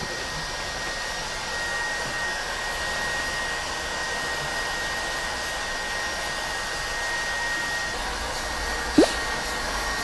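Electric heat gun blowing steadily with a faint high whine as it is played over window-tint film on a car's rear windshield, heat-shrinking the film to the curved glass. About nine seconds in comes a short rising squeak.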